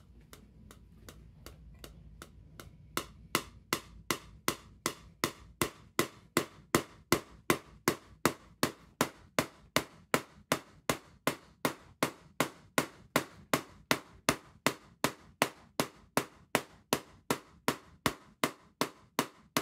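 Half-bridge DRSSTC Tesla coil firing spark discharges from its toroid's breakout point at a slow interrupter rate: a sharp snap about three times a second. The snaps are faint at first over a low hum and much louder from about three seconds in.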